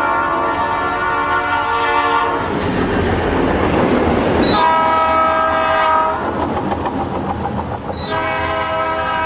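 Train air horn sounding a chord of several tones in three blasts: one ending about two seconds in, a short one in the middle, and another starting near the end. Between the blasts is the loud rushing and clatter of the train passing.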